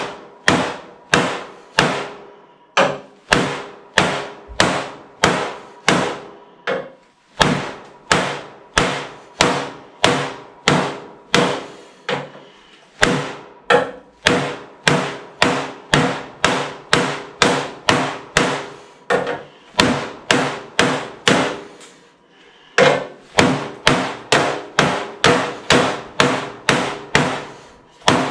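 KA-BAR 1245 tanto knife with a 1095 Cro-Van steel blade stabbed again and again into a car door panel, about two hard strikes a second with a few short pauses. Each hit makes the door's sheet metal ring briefly.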